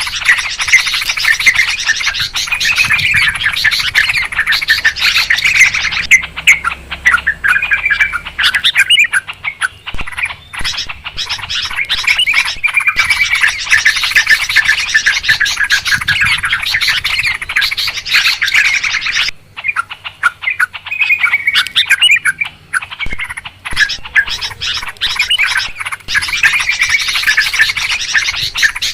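Yellow-vented bulbuls (trucukan) calling noisily together: a dense, excited chatter of bubbly phrases from several birds, easing off briefly twice.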